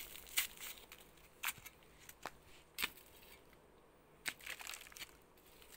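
A handful of soft, scattered crackles and crunches as a banana sucker is worked loose from the soil: earth crumbling, roots breaking and dry banana leaves being handled.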